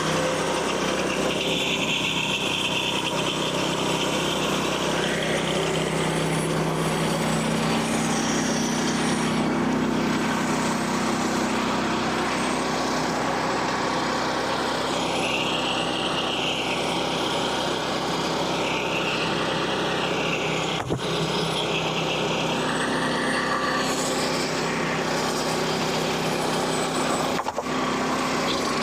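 Portable bandsaw sawmill's small gasoline engine running steadily under load as the band blade cuts through red oak, with a wavering high whine that comes and goes. Two short clicks in the second half.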